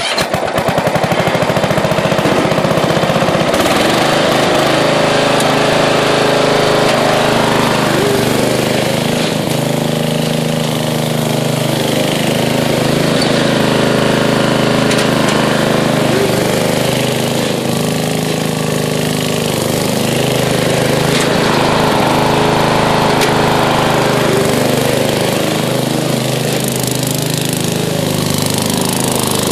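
MTD riding mower engine running steadily and loudly as the mower is driven across the lawn in hard launches, its pitch shifting a little now and then.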